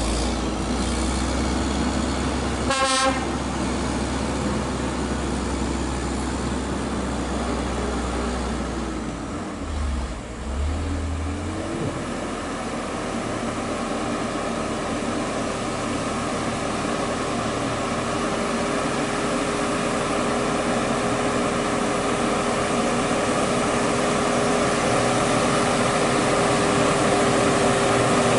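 Loaded Hino 500 diesel truck labouring up a hill towards the listener, its engine note growing louder. A short horn toot sounds about three seconds in, and around ten seconds in the engine note drops and picks up again as it changes gear, then holds steady.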